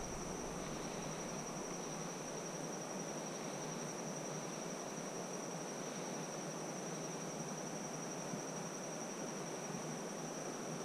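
Insects trilling steadily at one high pitch over the even rush of swift river water.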